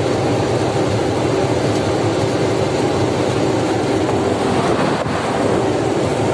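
Steady drone of a lorry driving at highway speed, heard from inside the cab: engine and road noise with a faint steady hum underneath.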